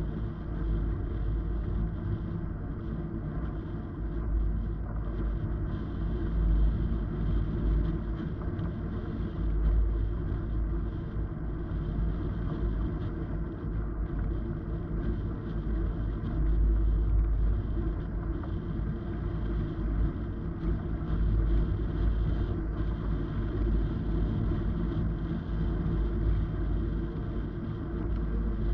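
Wind buffeting an action camera's microphone in paraglider flight: a steady low rumble that rises and falls.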